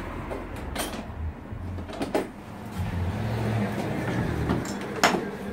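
FeelFree Lure kayak seat being unclipped and lifted out: a few sharp clicks and knocks from its metal clips and frame, the loudest near the end, with rustling handling noise.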